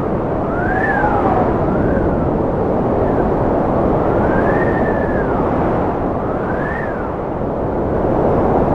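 Strong wind blowing with a steady rush, with a high whistling howl that keeps rising and falling in pitch every second or two.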